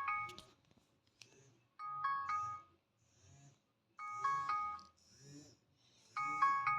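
Smartphone alarm tone, the one shared by the Philips S326, Kazam Trooper 450 and Dell Venue 7, ringing. A short electronic phrase of a few notes repeats about every two seconds.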